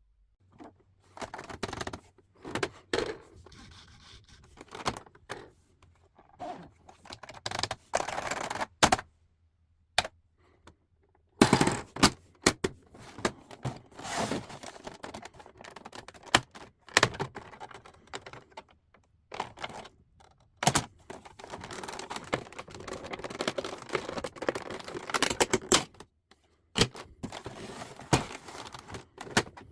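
An old typewriter being taken apart by hand: irregular metallic clicks, knocks and rattles of its parts, with stretches of scraping. The sharpest knocks come about a third of the way in, and a denser run of scraping and rattling comes past the middle.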